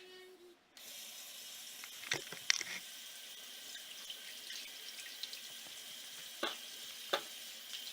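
Water running from a sink tap, turned on suddenly about a second in and running steadily, with a few sharp knocks against the sink.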